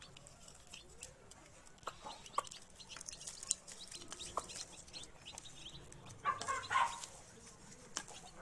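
Mother hen clucking as she and her newly hatched chicks peck feed from a ceramic plate, with scattered sharp beak taps on the plate. The loudest clucking comes about six seconds in.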